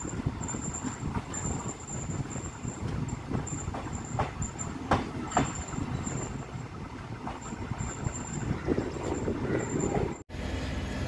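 Passenger train running along the track, heard from on board: a steady rumble with a few sharp clacks of the wheels over rail joints. The sound drops out abruptly near the end.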